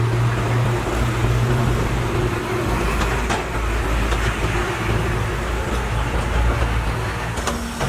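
Heavy diesel machinery running steadily, a low engine hum with a few faint knocks of metal or rock.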